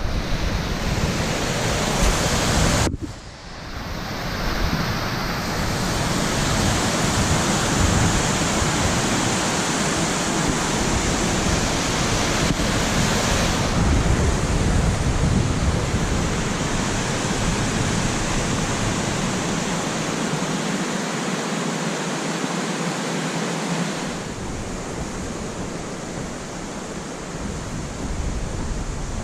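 Waterfall on a small river: a steady rush of falling water, with wind buffeting the microphone at times. The sound drops out briefly about three seconds in.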